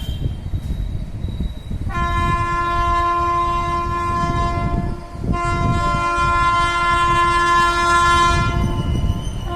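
WAP7 electric locomotive's twin-tone horn sounding two long blasts of about three seconds each, with a brief break between, starting about two seconds in. Under it runs the steady rumble of the train's LHB coaches on the track.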